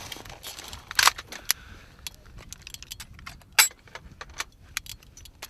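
Metal parts of a machine gun clicking and clinking as it is handled and stripped in a timed drill: a run of sharp, irregular clicks and clanks, with louder ones about a second in and a little past the middle.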